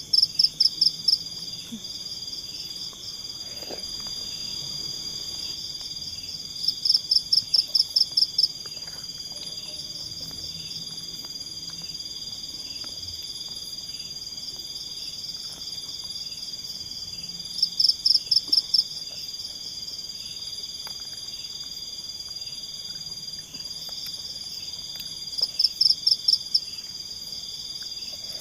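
Night insect chorus: a steady high buzz of crickets, broken four times by a louder pulsed trill, about five pulses a second in bouts of roughly two seconds.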